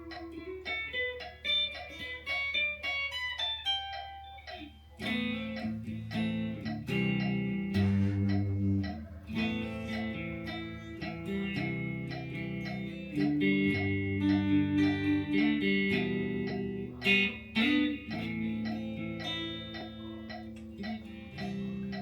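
Guitar being played in practice: a picked single-note line, then from about five seconds in louder, fuller playing with low notes under it.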